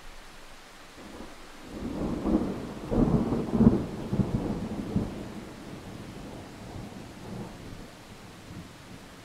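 Thunderstorm: a roll of thunder over steady rain, the low rumble swelling a couple of seconds in, loudest around three to four seconds, then fading away.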